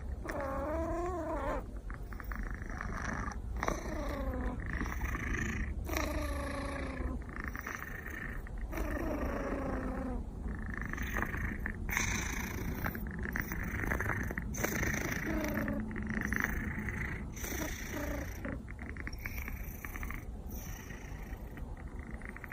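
Domestic cat making short trilling, cooing chirps, one every second or two, each with a quick up-and-down bend in pitch, over a steady low purr. The cooing trill with purring is a sign the cat is content.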